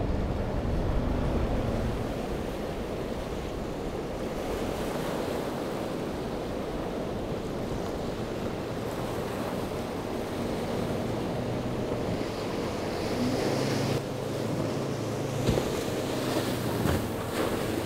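Waves and surf breaking, with wind buffeting the microphone. In the last several seconds a boat's single Yamaha 200 outboard motor is heard running underneath the surf noise.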